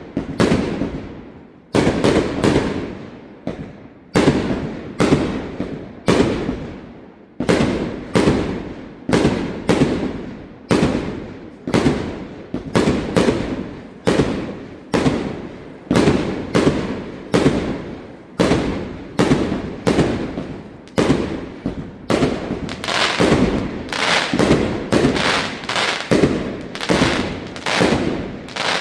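Fireworks display: bursts going off one after another, about one bang a second, each followed by an echoing tail. The bangs come faster and closer together in the last few seconds.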